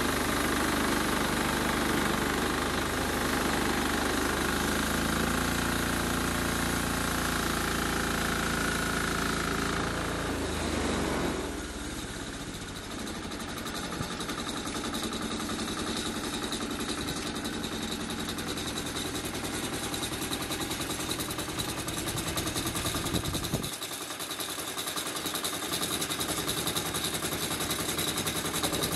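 Petrol engine of a homemade bandsaw mill running steadily as the blade saws through a larch log. About a third of the way in the engine note drops and grows quieter, and it carries on running lighter after that.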